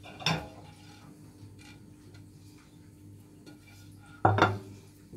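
Two short clinks of glass kitchenware, one just after the start and a louder clatter of a few quick knocks about four seconds in, as a large ridged glass plate is set down on the countertop.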